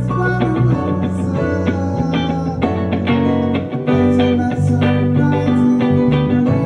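A band playing live, led by plucked guitar over held bass notes that change every second or so.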